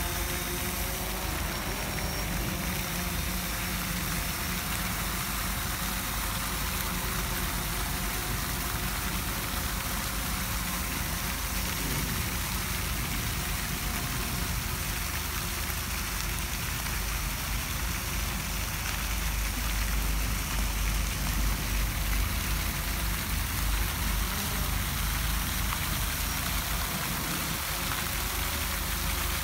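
Fountain jets splashing steadily into the water of the basin, with a low rumble underneath that swells for a few seconds about two-thirds of the way through.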